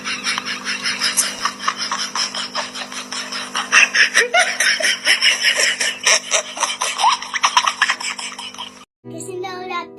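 Rapid, loud laughter over a steady hum, cut off suddenly about nine seconds in, after which music with singing starts.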